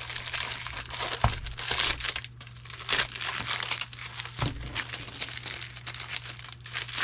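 Packaging crinkling and rustling as it is handled, with two soft knocks, one about a second in and one near the middle.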